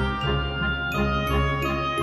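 Background music: light tinkling, bell-like high notes over sustained low tones.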